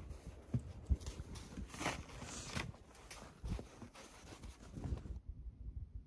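Dachshund puppy bounding through deep snow: repeated soft thumps and crunching as its paws and body push through the snow. About five seconds in this gives way to quieter indoor room tone.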